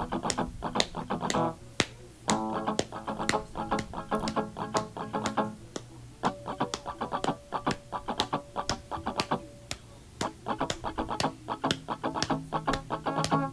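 Instrumental guitar break in a post-punk rock song: rapid rhythmic picked or strummed chords, with a single note ringing out for a few seconds in the middle.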